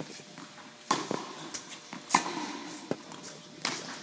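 Tennis rally: a ball struck by rackets and bouncing on a hard court, heard as about four sharp pops roughly a second apart.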